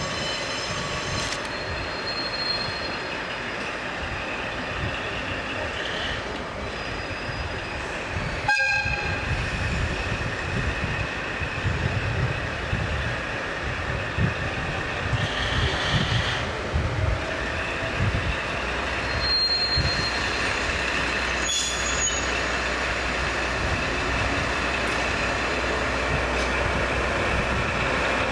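JR DE10 diesel-hydraulic locomotive running at low speed through a station yard, its diesel engine rumble growing louder from about a third of the way in as it approaches. A brief horn note sounds at about the same point.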